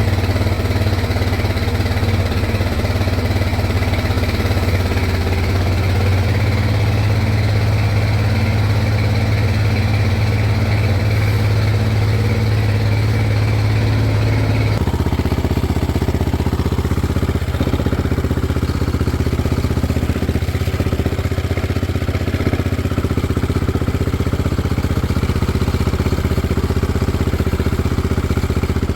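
Can-Am DS450's single-cylinder four-stroke engine running steadily in the Power Wheels build, with an abrupt change in its tone about halfway through.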